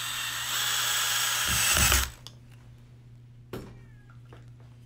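Cordless power drill driving a screw through a molly into an aluminium rod. It runs, getting louder, and stops abruptly about two seconds in; a few faint clicks follow.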